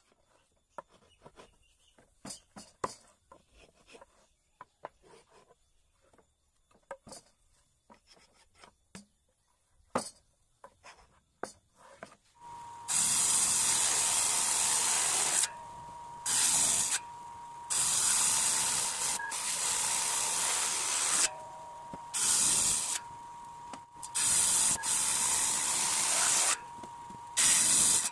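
Light taps and clicks of a pencil and hands on teak boards, then about halfway in an electric saw starts cutting teak: a loud hissing cut noise over a steady whine, in several long passes with short breaks where only the whine carries on.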